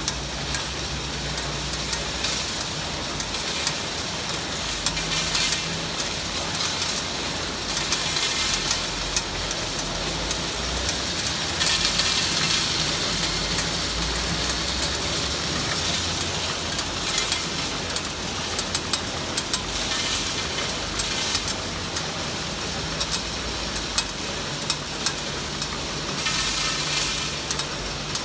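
MWCA Mini Wrap candy wrapping machine running: a steady mechanical hum and hiss with a fast, irregular stream of clicks.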